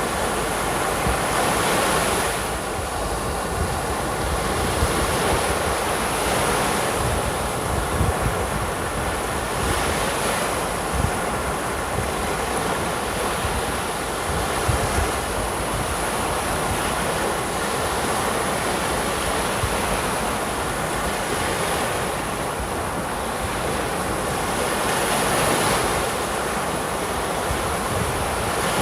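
Waves breaking on a sandy beach, surf washing in and out in swells every few seconds, with wind buffeting the microphone.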